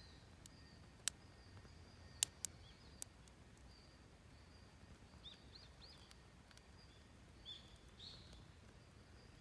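Wood fire of scrap timber and firewood giving a few sharp pops, four of them in the first three seconds, over a low hush. Faint bird chirps sound in the background, several around the middle and near the end.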